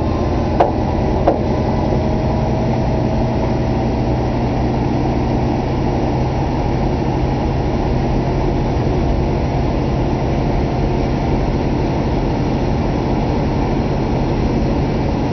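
1966 Ford Thunderbird convertible's V8 running at a raised idle while the power top's hydraulic pump runs steadily, a pump the owner finds a bit slow. Three sharp clicks in the first second and a half as the top mechanism starts.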